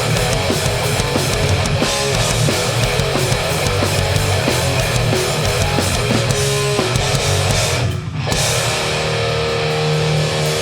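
Hardcore punk band playing live, with distorted electric guitars and fast drums. About eight seconds in the playing breaks off for a moment, then a held guitar chord rings on.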